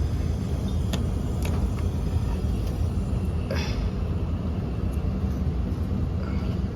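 Air handler running with a steady low hum, with a few light clicks and taps over it.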